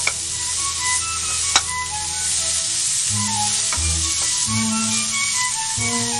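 Sliced vegetables and chicken sizzling in a hot frying pan as a wooden spatula stirs them, with a sharp tap about a second and a half in. Background music plays along.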